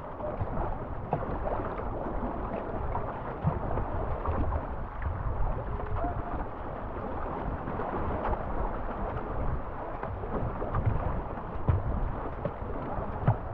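Rushing, choppy river water splashing around a canoe being paddled, with wind rumbling on the microphone.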